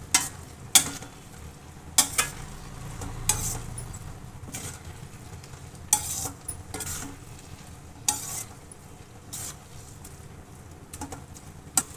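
A spatula stirring grated bottle gourd cooking in milk and cream in a stainless-steel kadai, scraping and knocking against the pan at irregular moments every second or so. Under the strokes runs a low steady sizzle of the mixture cooking down.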